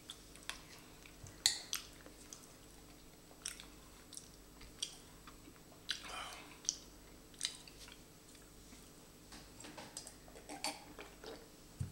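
Wet chewing and swallowing of a thick, sticky mouthful of Vegemite, broken by short clicks and scrapes of a metal spoon digging in the jar. A low knock comes at the very end.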